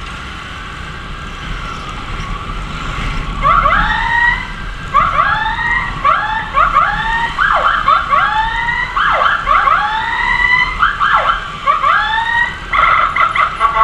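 Electronic emergency siren in a fast yelp, its pitch sweeping up quickly about twice a second, starting about three seconds in. Near the end it switches to a choppy pulsing tone. Low road and engine rumble from the moving motorcycle lies underneath.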